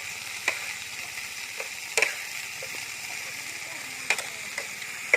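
Food frying in a pan: a steady sizzling hiss, with several sharp clicks or taps over it.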